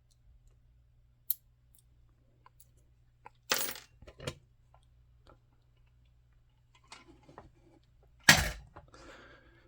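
Small metal objects knocked and set down on a hard surface, a few separate sharp clinks and clacks. The loudest comes near the end.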